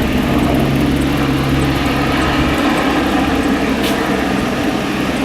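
Air-ambulance helicopter running close by: a loud, steady rush of rotor and engine noise over a low hum, the low hum dropping away about two and a half seconds in.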